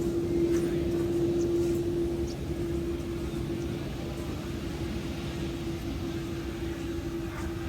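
Jet airliner engines rumbling with a steady whine, louder for the first couple of seconds and then easing off a little.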